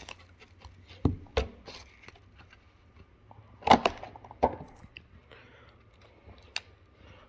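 Hands handling a plastic clamshell blister pack and a bubble-wrapped flip phone: soft plastic crinkling with a few scattered sharp clicks and knocks. Two knocks come about a second in and the loudest click near the middle.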